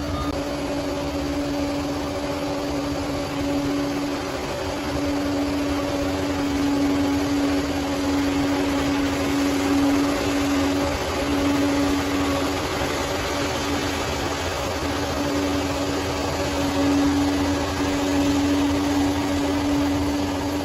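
Bulldozer's diesel engine running at a steady pace, with a constant droning tone over the machine's mechanical noise.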